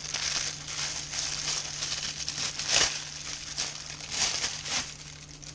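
Packaging crinkling and rustling as a storage bag is unwrapped by hand. The crinkling is loudest about three seconds in and again about four seconds in.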